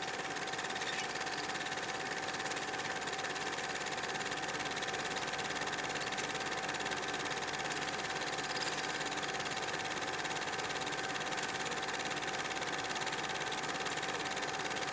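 A steady, unchanging hiss with a constant tone running through it, starting and stopping abruptly.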